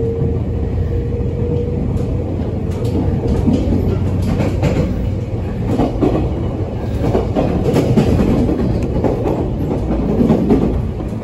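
485-series electric train heard from inside the carriage while it runs at speed: a steady rumble and low hum, with the wheels clicking over rail joints.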